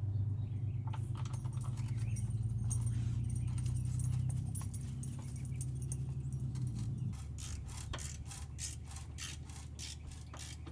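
Metal clinking and rattling of hand tools on bolts, over a steady low hum. In the second half a ratchet wrench clicks at about three strokes a second.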